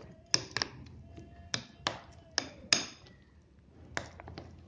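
A steel spoon clicking and tapping against the sides of a bowl while stirring a thick gram-flour batter with chopped onions. The clicks are sharp and irregular, about one every half second.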